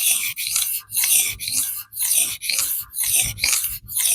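D2 steel knife blade stroked back and forth on a DMT diamond sharpening plate, a rasping scrape about two strokes a second. Through the scrape runs a tap, tap, tap, which the sharpener puts down to chunks of diamond standing taller than the rest of the plate and slamming into the edge.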